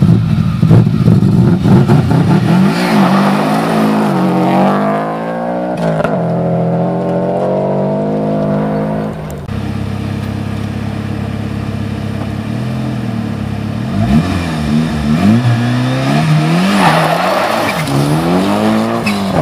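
Rally cars revving hard at the start line of a gravel stage and launching away. First comes a Subaru Impreza's flat-four, its pitch rising as it pulls off, then steady running. After a break, a Mitsubishi Lancer Evolution's engine runs steadily, is blipped up and down, and launches near the end with the revs climbing.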